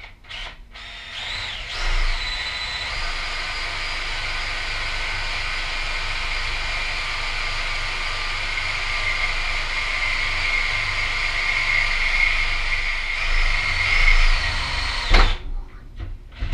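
Cordless drill boring a hole through the metal bracket of a helmet rack: the motor spins up about a second in, runs steadily under load for about thirteen seconds, then stops near the end.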